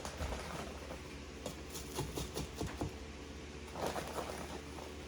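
Carrot peels being stuffed into an Instant Pot packed with roasted pork bones: light rustling with scattered small clicks and knocks.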